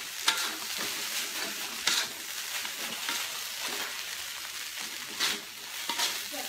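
Fried rice being stir-fried in a metal wok: steady sizzling of the dried-chilli paste in hot oil, with a wooden spatula scraping and knocking against the wok several times.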